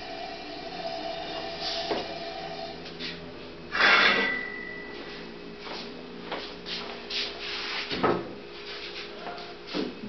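Wooden knocks and scraping from screen-printing frames being handled and put into a wooden rack, over a steady hum. The loudest is a scrape about four seconds in, with sharp knocks about eight seconds in and again near the end.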